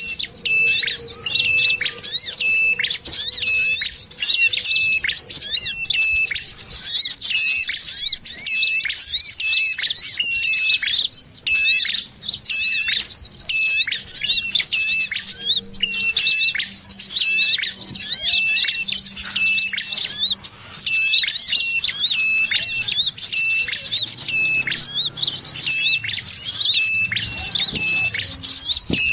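Bird-lure playback of small songbirds: fast, dense scolding chatter of prenjak warblers layered with a short, high, repeated note about twice a second, used as a call to draw wild birds in. It runs without pause apart from two brief dropouts, one near the middle and one about two-thirds in.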